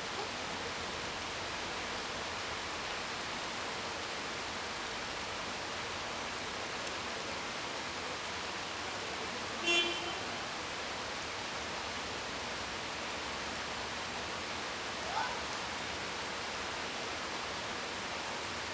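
Steady rain falling, an even hiss. About ten seconds in, a brief pitched toot cuts through, and a few seconds later comes a short rising chirp.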